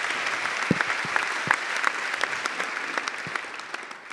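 Audience applauding, many hands clapping together; the applause dies away near the end.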